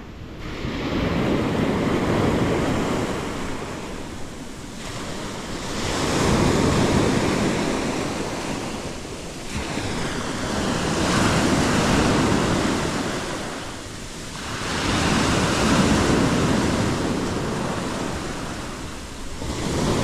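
Sea waves breaking on the shore and washing back, the rush swelling and fading about every five seconds.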